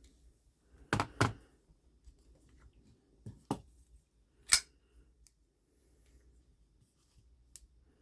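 Sharp metallic clicks and knocks from folding knives being handled, in pairs about a second in and about three and a half seconds in, with a louder ringing click about four and a half seconds in.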